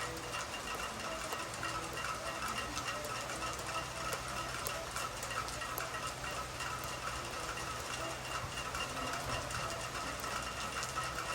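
Soft rain falling steadily, with many small drips pattering, over a steady low hum.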